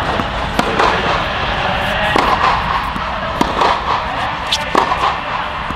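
Tennis rally: a Head Boom MP racket striking the ball, with the ball bouncing on the hard court, giving a series of sharp pops roughly one a second.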